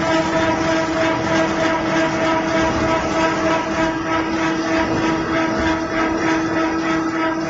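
PY 1200S roll-fed automatic flat-bed die-cutting machine running, with a steady hum from its drive under a continuous mechanical clatter.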